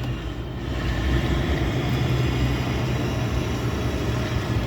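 Steady low hum and rumble of a running vehicle engine.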